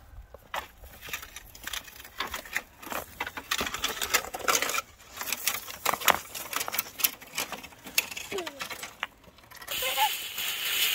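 Irregular clicks and light knocks of hands-on food preparation, then a steady rush of water starting near the end.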